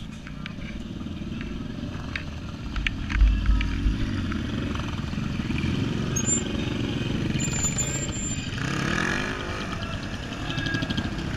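Several motorcycles, mostly big cruisers, riding off one after another, their engines rising and falling in pitch as they rev and pass by.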